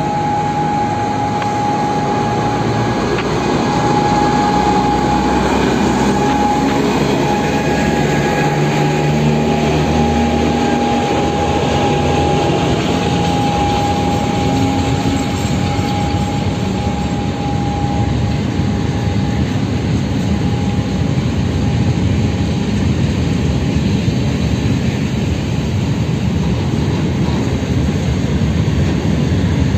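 BR232 'Ludmiła' diesel locomotive, with a TEM2 shunter coupled behind, pulling a heavy freight train away from a standstill. Its 16-cylinder two-stroke diesel is loud and rises in pitch under power, with a steady high whine that fades as the locomotives move off. It then gives way to the steady rumble of the wagons rolling past.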